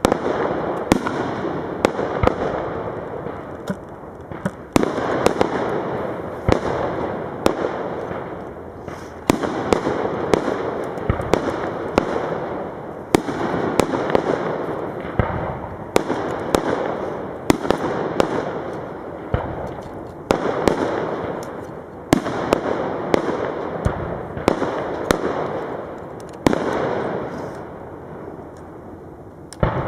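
Aerial fireworks shells bursting in quick succession, a sharp bang every second or two, each followed by a fading crackle. The bangs thin out near the end before another one at the close.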